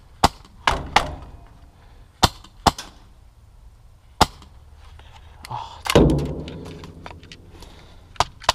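Airsoft guns firing single shots: a string of sharp snaps at irregular intervals. About six seconds in there is a louder thump with a fading rustle.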